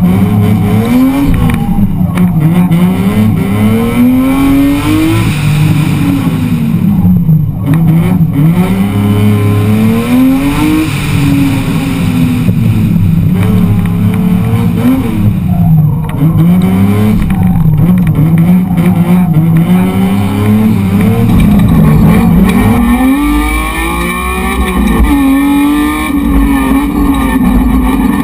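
Rear-wheel-drive BMW E30's engine revving hard and easing off again and again as the car is driven flat out round a cone course, its pitch climbing and dropping every second or two.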